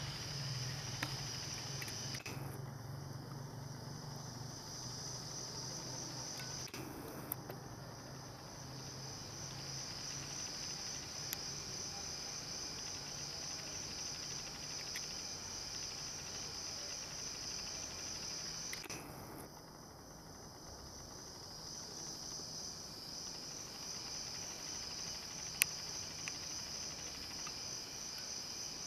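A steady chorus of night insects trilling in a high, finely pulsing band, over a low hum that fades out about two-thirds of the way through. A few sharp clicks stand out, one near the start and others later on.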